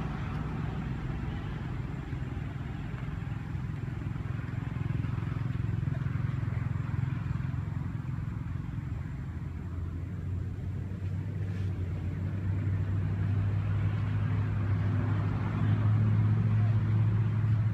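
Steady low engine rumble, with a hum that grows stronger about ten seconds in.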